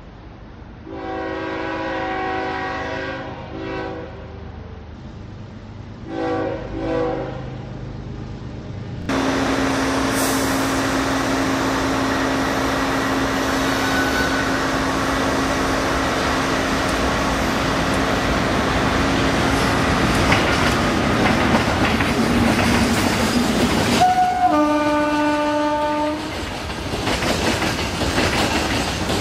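Indian Railways electric locomotive horns over the noise of a passing freight train. Two chord-like horn blasts come early. After that there is a steady hum and the rumble and clatter of wagons rolling by. About two-thirds of the way in, a horn blast starts with a short higher note and drops into a lower chord.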